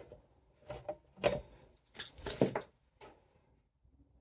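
A small metal tool clinking and scraping against the screws and steel frame of a Seagate ST-225 hard drive as it is being taken apart: a handful of irregular sharp clicks with short metallic ringing, the loudest a little after one second and just before the middle.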